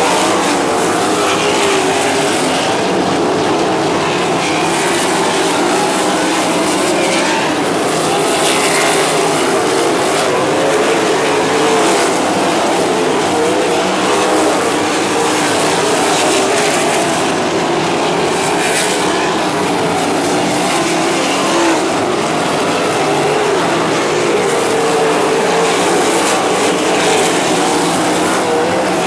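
A pack of non-winged sprint cars racing on a dirt oval, several engines running hard at once, their pitch wavering up and down as the cars lap.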